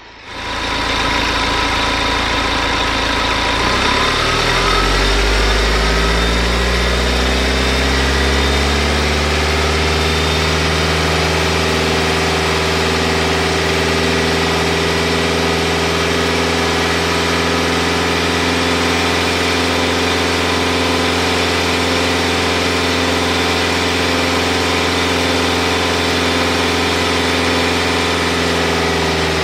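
BMW N47 four-cylinder diesel engine running warm. A few seconds in, its revs rise smoothly, then hold at a steady raised speed.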